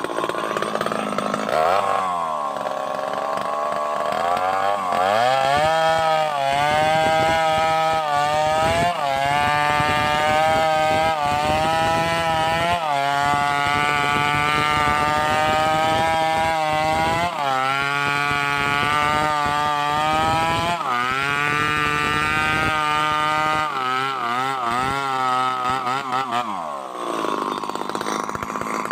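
Two-stroke chainsaw cutting into a hardwood trunk. The engine's pitch sags and recovers again and again as the chain bites into the wood under load.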